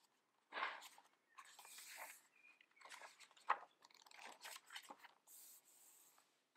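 Paper pages of a notebook refill being fanned and flipped inside a leather cover: faint, scattered rustles and brushing, with a sharper flick about three and a half seconds in.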